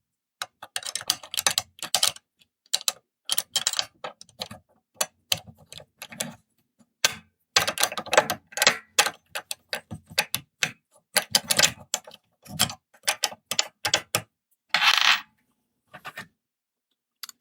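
Metal 2-in-1 lever-lock pick clicking and scraping in the keyway of an Ace four-lever padlock as it is fitted and worked: an irregular run of sharp clicks and short rattles, with a longer scrape about fifteen seconds in.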